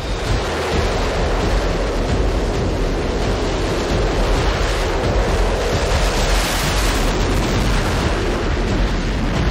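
Steady jet noise from an F-35A's single F135 turbofan as the fighter climbs away just after takeoff: a dense, even rush with no clear tone.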